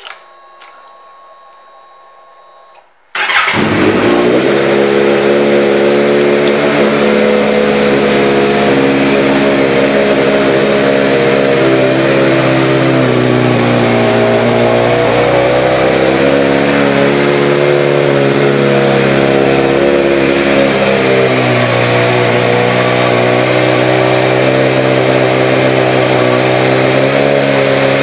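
2017 Kawasaki Z900's 948 cc inline-four, fitted with a Yoshimura exhaust, starting about three seconds in after a few seconds of faint whine with the ignition on. It then runs at a steady idle, its pitch rising and falling slightly a couple of times.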